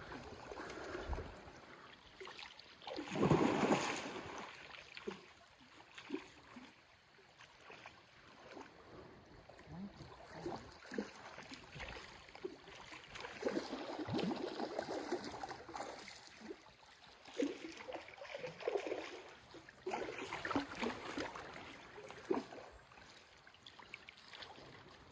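Stream water flowing and splashing, with irregular louder splashes; the loudest comes about three to four seconds in.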